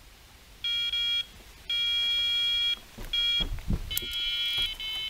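Electronic carp bite alarm sounding a run, a fish taking line: a short beep, a long unbroken tone, then a string of quicker beeps. A few low knocks come about three and a half seconds in as the rod is lifted off the pod.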